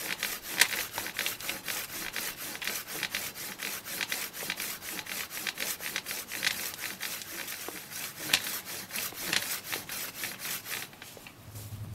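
Hand pole saw with freshly file-sharpened teeth cutting through a living apple limb: quick back-and-forth strokes, several a second, with the teeth rasping through the wood. The strokes stop about a second before the end.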